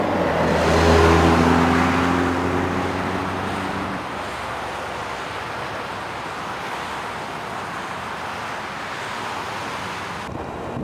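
Chrysler PT Cruiser driving along a highway: its engine tone swells in the first second or so and drops away about four seconds in. A steady rush of road and wind noise continues, and the high hiss falls off suddenly near the end.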